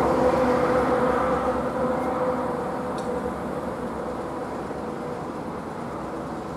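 Truck-mounted crane running: a steady mechanical hum with a held whine, gradually fading.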